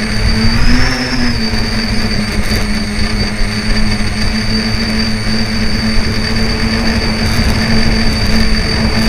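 Tricopter's electric motors and propellers whining steadily in flight, with wind buffeting the microphone; the pitch rises briefly about a second in as the throttle changes.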